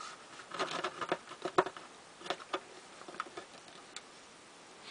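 Small plastic clicks and taps of a vintage Kenner R5-D4 action figure being handled and stood on a plastic display surface. The clicks are irregular, most of them in the first half, with the sharpest about a second and a half in.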